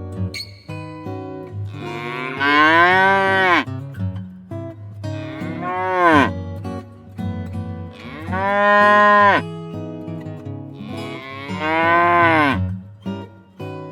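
A cow mooing four times, each moo a long call that rises and then falls in pitch, over soft background guitar music.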